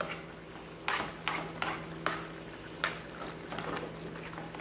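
A metal spoon stirs chicken adobo in a frying pan, clinking and scraping against the pan about six times at uneven intervals. A steady low hum runs underneath.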